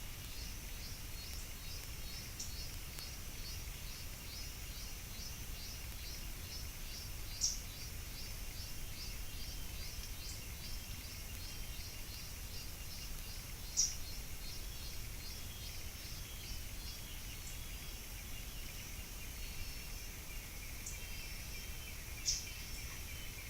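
Natural outdoor ambience with a steady, rapidly pulsing high chorus of insects. A few short, sharp bird chirps cut through it, three of them louder than the rest, over a low rumble.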